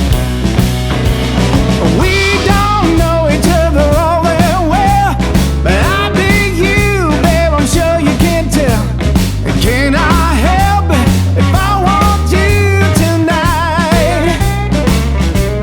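Rock song with a singing voice, electric guitar and drums playing as background music.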